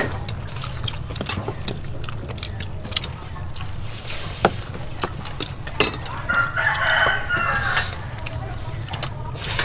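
A rooster crows once, about six seconds in, a call lasting about a second and a half. Spoons click against plates and leaves at the table throughout.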